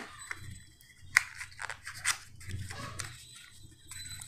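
Black cardboard packaging handled by hand: a thin card sleeve slid and scraped against its inner box, with a sharp click at the start and another about a second in, and scattered rustles and taps between.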